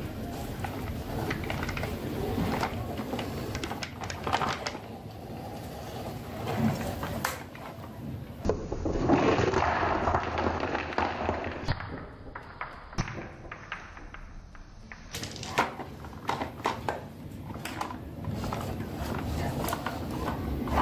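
Glass marbles rattling in a plastic toy loader bucket and clattering as they roll down a wooden wave-shaped marble run, mixed with the knocks and rolling of the plastic toy loader being moved about.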